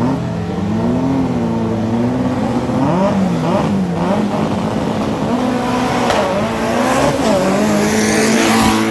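Drag race cars' engines revving, the pitch rising and falling again and again, getting louder and rougher toward the end.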